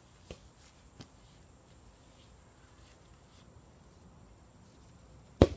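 A soccer ball being kicked: one sharp, loud thud near the end, after two faint taps early on, over quiet outdoor background.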